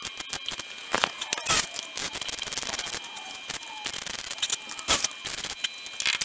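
Arc welder crackling as a steel repair patch is welded into a car's rusted sill, a fast irregular crackle with a few sharper cracks about a second in, at a second and a half and near the end.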